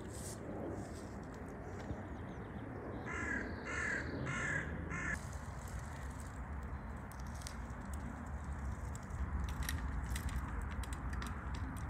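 A crow cawing four times in quick succession about three seconds in, over a steady low background rumble.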